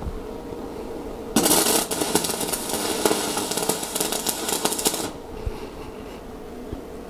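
Stick (covered-electrode) arc welding on steel plate: the arc is struck about a second and a half in, crackles steadily for under four seconds, then stops.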